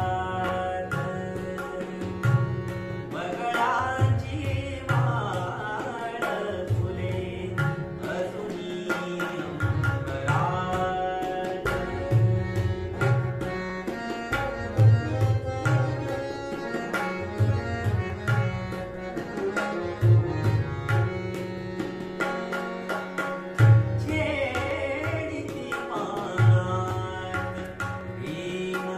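Harmonium and tabla accompaniment to a Marathi bhavgeet. The harmonium holds steady reeded notes while the tabla keeps a regular rhythmic cycle with deep bass strokes on the bayan. A male voice sings short ornamented phrases a few seconds in, around ten seconds in and again near the end.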